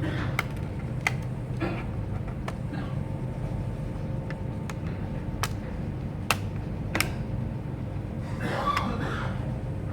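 Scattered sharp clicks and taps of laptop parts being handled during reassembly, over a steady low hum.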